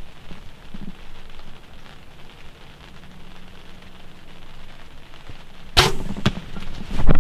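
A bow shot at a whitetail doe: a sharp crack of the string's release and the arrow striking, about six seconds in, with a smaller crack half a second later, over steady light rain. The loudest thump of all comes just after seven seconds.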